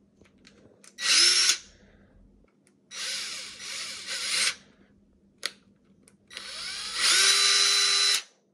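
AEG cordless drill-driver running free in second (high) gear, its trigger squeezed three times: a short full-speed burst about a second in, a longer run that steps up in speed, and a last run of nearly two seconds that ramps up to full speed, each whining up on start and winding down on release. A single sharp click sounds between the second and third runs.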